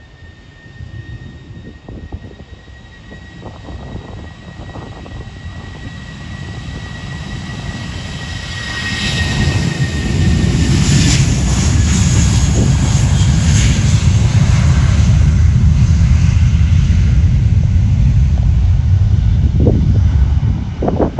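An airplane's engines heard close by: a high whine that sinks a little in pitch, then a loud low engine roar that builds about ten seconds in and holds until near the end.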